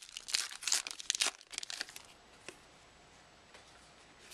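Plastic-foil trading-card pack wrapper crinkling as it is handled and torn open, a dense run of crackles for about two seconds that then dies away to a few faint ticks.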